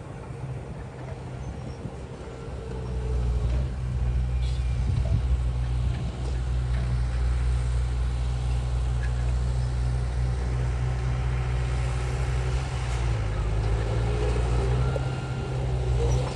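Heavy diesel engine of earthmoving machinery running with a deep steady drone, growing louder about three seconds in and then holding steady.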